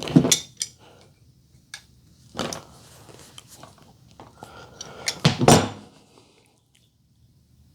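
Hand-crimping butt connectors onto spliced wires: clicks and rustling handling noise from the crimper and wires, with a louder cluster a little past the middle.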